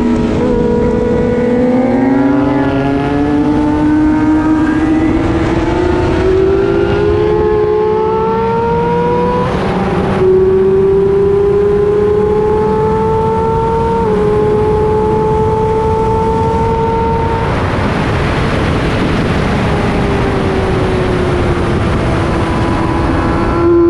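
Race motorcycle engine accelerating hard through the gears, its pitch climbing, dropping sharply at an upshift about ten seconds in, then climbing again. Near the end the throttle closes: a rush of noise takes over and the revs fall.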